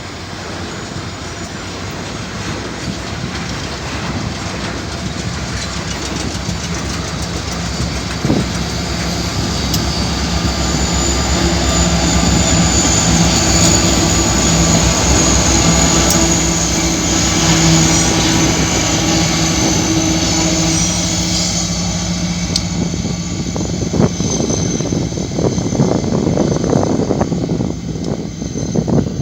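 Freight train passing close by, growing louder toward the middle. Diesel locomotive engines drone steadily for a stretch, with a thin high wheel squeal, then the wheels clatter and click over the rail joints near the end.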